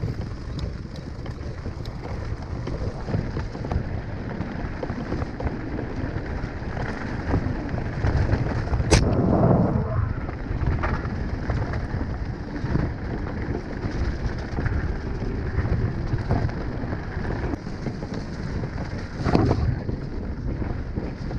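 Mountain bike descending a loose rocky trail: tyres crunching and the bike rattling over stones, with wind buffeting the microphone. A sharp knock about nine seconds in starts a louder rough second, and there is another loud rough patch near the end.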